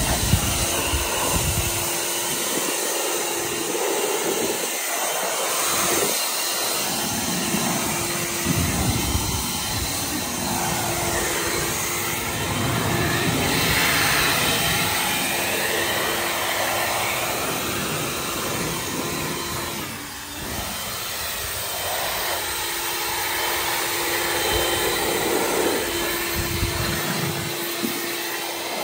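Battery-powered EGO leaf blower running, a steady rush of air with a faint whine that comes and goes, swelling and easing as it is aimed, used to blow water off a car's paint. The air noise dips briefly about two-thirds of the way through.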